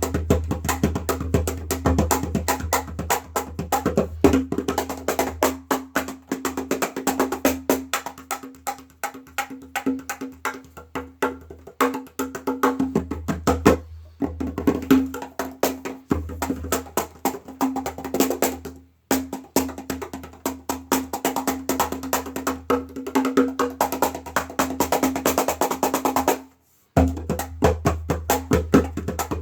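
Meinl Turbo Slaptop cajon played by hand in a continuous fast groove of sharp wooden slaps, snare strokes and deep bass strokes. The playing breaks off for about half a second near the end.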